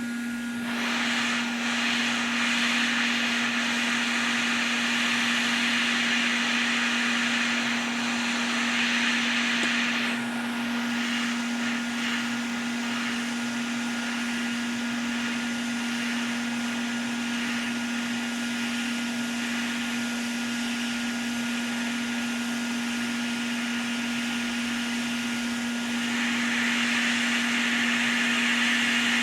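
Hot air rework station blowing steadily: a constant blower hum under a rushing air hiss, the hiss louder for the first ten seconds and again near the end.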